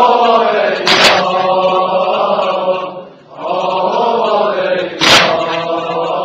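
A voice chanting a slow, sustained melody over a low steady drone, in two long phrases with a brief break about three seconds in. Two sharp hits cut through, about a second in and again about five seconds in.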